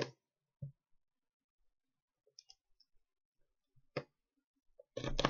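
A pin being jabbed through thin cardboard panels, making a few scattered clicks and soft pops, with a louder, longer knock near the end.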